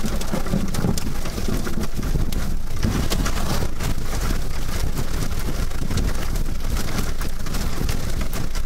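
Heavy rain drumming on a car's windshield and body, heard from inside the cabin: a dense patter of sharp drop hits over a steady low rumble.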